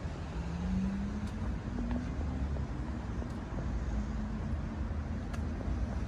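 Low, steady rumble of road traffic, with one vehicle's engine rising in pitch over the first couple of seconds as it speeds up.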